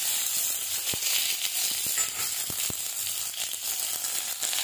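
Raw mango slices sizzling in hot mustard oil in a kadhai while being stirred with a wooden spatula, which knocks lightly against the pan a few times.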